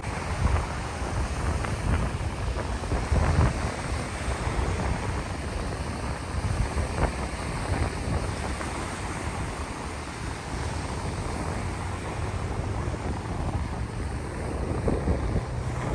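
Steady wash of gulf surf breaking on the beach, mixed with wind rumbling and buffeting on the microphone.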